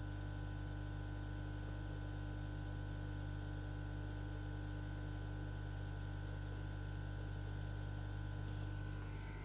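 Steady low hum of reef aquarium equipment such as a running pump, with a few faint steady tones above it and a light hiss.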